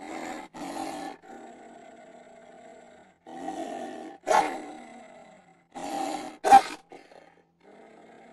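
A series of recorded animal growls and roars standing in for a wolf spider, which makes no such sound. They come as several separate bursts with short gaps, and the loudest is a short, sharp one a little after six and a half seconds in.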